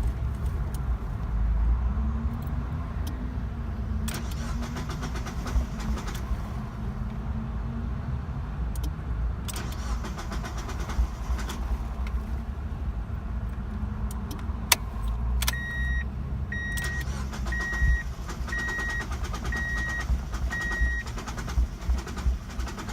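1999 Mazda MX-5 Miata's four-cylinder engine being cranked on the starter for a long stretch, struggling to catch when hot; the owner suspected the coil pack, but the hard starts ended only after the fuel pump and filter were replaced. A car's warning chime beeps about once a second, six times, past the middle.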